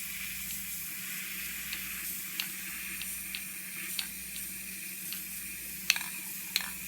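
Steady hiss with scattered light ticks and taps of small handling, a few sharper clicks near the end.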